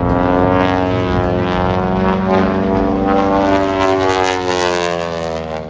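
Propeller-driven aerobatic airplane flying past, its engine and propeller note loud and steady, then dropping slightly in pitch and fading near the end as it moves away.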